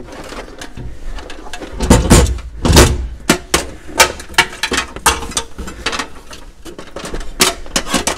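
Handling knocks and clicks of plastic trim and cables being pushed back into place around a van's seat base, with two heavier thumps about two and three seconds in.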